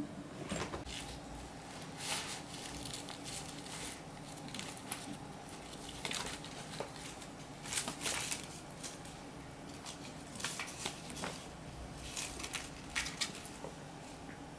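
Burmese kittens wrestling on a rug: scattered short scuffling, rustling and claw-scratching sounds in irregular bursts.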